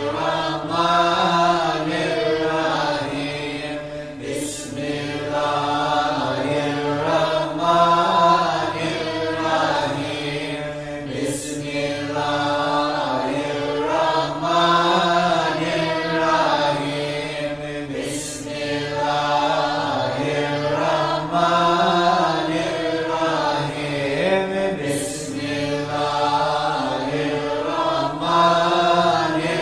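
Sufi dhikr chanting: voices singing a slow melodic phrase that repeats about every seven seconds, each cycle marked by a short sharp hiss.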